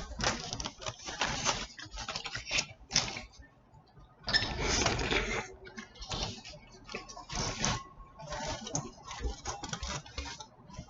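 Close-miked eating: chewing and handling of a burrito, heard as a run of irregular wet clicks and rustles, with a longer rustling burst about four seconds in.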